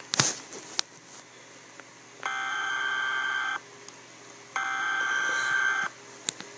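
Emergency Alert System SAME header: two buzzy digital data-tone bursts, each about a second and a half long, about a second apart. They mark the start of an emergency alert broadcast. A sharp click comes right at the start.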